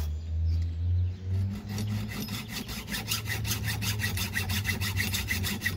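Dull hand hacksaw cutting with fast, even back-and-forth strokes, settling into a steady rhythm after about a second and a half, over a low steady hum.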